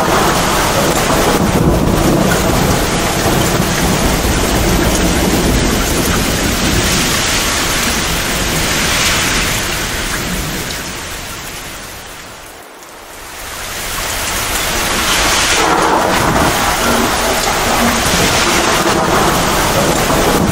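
Heavy, torrential rain pouring steadily, with thunder rumbling low underneath. About twelve seconds in, the whole sound fades down to a brief lull and swells back up.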